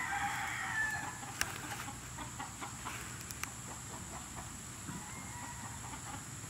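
Chickens clucking, with a rooster crowing once at the start, a call of about a second and a half. A few light clicks follow.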